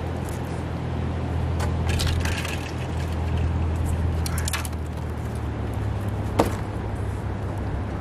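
Wooden boards being shifted and knocked on a treehouse platform: scattered clattering knocks, with one sharp knock about six seconds in, over a steady low rumble.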